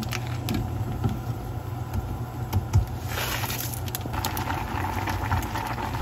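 A steel pot of tomato ramen broth simmering on the stove over a steady low hum, with a few light clicks and knocks and a brief rustle about three seconds in as the instant noodles go into the pot.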